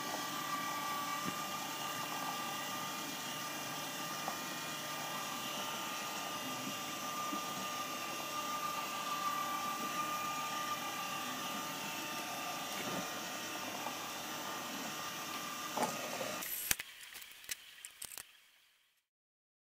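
Small DC gearmotor of a cycloid drawing machine running steadily with a high whine as it turns the plastic gears and linkage arms. Near the end it cuts off with a click, followed by a few light knocks of the machine being handled.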